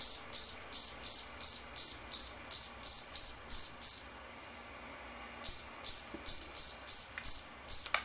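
Cricket chirping, played back from an online video through computer speakers: short, high chirps at a steady rate of about three a second. The chirping stops for about a second just past the middle, then resumes at the same rate.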